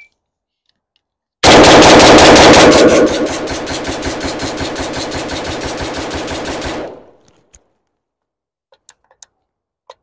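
Yugo M70 AK rifle in 7.62×39 fired rapidly, a long fast string of evenly spaced shots lasting about five seconds, emptying the magazine. A few small clicks of rifle handling follow near the end.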